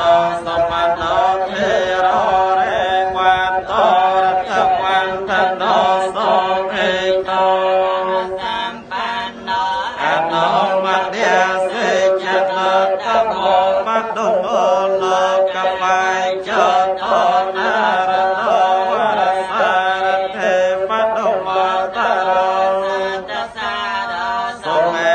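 Buddhist chanting: voices reciting a slow, melodic chant with long held and wavering notes, carrying on without a break.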